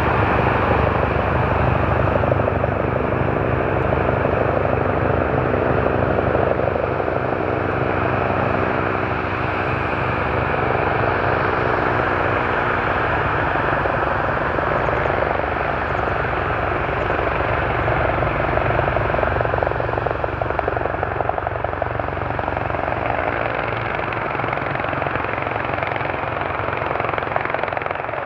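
Bell 412EP twin-turbine helicopter flying low and close. Its four-blade main rotor chops steadily over the hum of the turbines, with a steady engine tone that is strongest in the first half and then fades.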